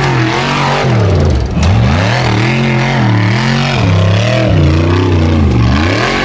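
Formula Offroad racing buggy's engine revving hard as it climbs a steep dirt hill, the revs rising and falling again and again as the throttle is worked.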